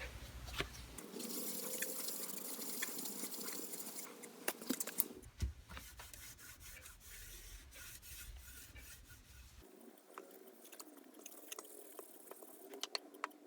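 Faint rubbing of a cloth on the metal tray of an old Craftsman toolbox while a test spot is cleaned, with a few small clicks about five seconds in.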